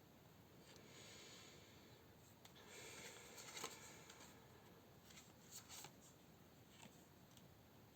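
Near silence with faint rustling and a few light taps of tarot cards being handled, strongest around the middle.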